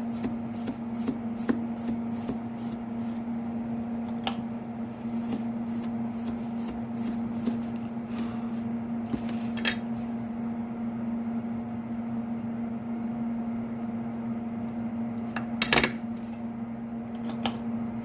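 Short, quick scrubbing strokes, about three a second, coming in runs as flux is cleaned off the freshly soldered connector pins, over a steady low electrical hum. A louder brief scrape comes about sixteen seconds in.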